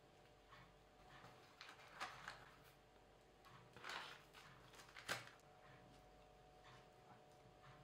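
Near silence over a faint steady hum, broken by a few soft knocks and a brief rustle, about two, four and five seconds in.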